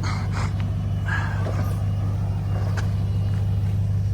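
Truck engine running at low, steady revs while crawling a rocky trail, a constant low drone, with a few faint brief knocks or crunches over it.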